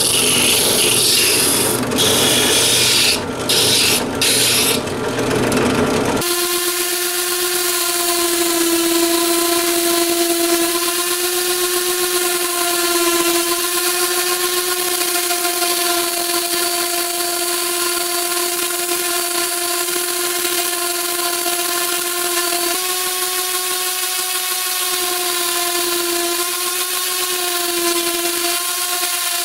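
A drum spindle sander in a drill press grinding against the inside of a wooden goblet cup, a rough sanding noise with brief dips. About six seconds in this gives way to an orbital sander, clamped upside down, running with a steady whine while the cup's rim is sanded flat on its pad.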